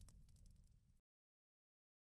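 Faint tail of a fiery logo-sting sound effect: a low rumble with scattered crackles fading out, then cut to dead silence about a second in.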